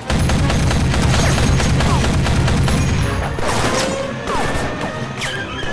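Rapid automatic gunfire in dense, overlapping volleys with heavy low booms, mixed with film music. The firing is thickest for about the first three seconds, then thins to scattered shots.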